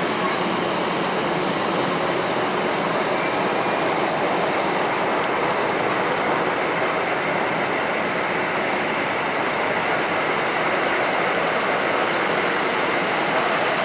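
Airbus A320's twin jet engines at idle thrust as the airliner taxis, a steady noise that stays even throughout.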